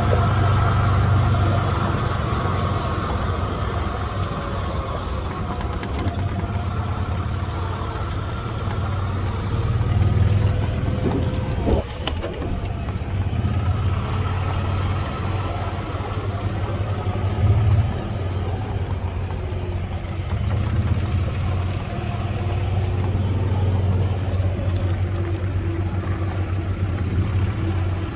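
Motor vehicle engine running, a steady low drone that swells slightly now and then.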